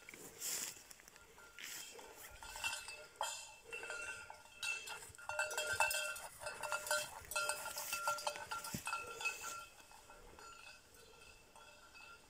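Botalo, a collar bell on a running pointing dog, clanking in an irregular, jostling rhythm as the dog moves; it grows fainter near the end as the dog ranges away.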